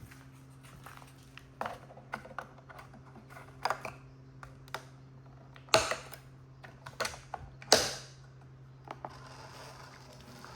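Plastic clicks and knocks of a coffee maker being handled and set up, irregular, with two louder knocks in the second half, over a steady low hum. A steady hiss begins near the end.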